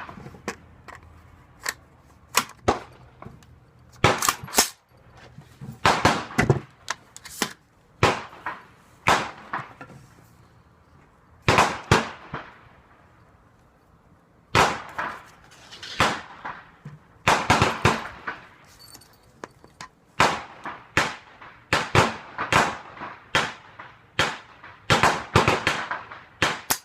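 Rifle gunfire on a shooting range: a long run of sharp shots at uneven intervals, some in quick succession, each trailing a short echo.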